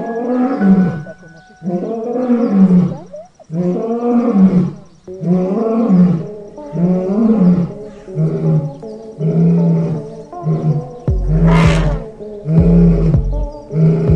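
Lion roaring in a run of calls about a second apart, each rising and falling in pitch. Past the midpoint, music with a deep pulsing bass comes in, with a sharp crash about three quarters of the way through.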